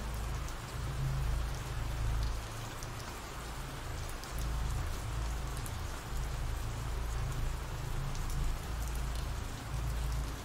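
Steady rain falling, an ambient rain recording, with a low rumble underneath.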